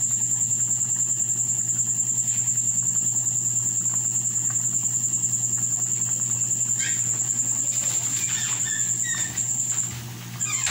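Pan of pancit canton noodles boiling hard on a gas stove, under a steady high-pitched trill pulsing about five times a second and a low hum. The sound dips and the trill briefly drops out near the end.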